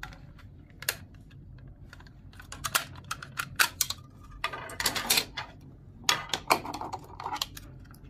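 Plastic fiber optic wall box being handled and opened: a run of irregular sharp plastic clicks and rattles as its snap-fit cover buckles are unclipped and the cover is pulled off and turned in the hands.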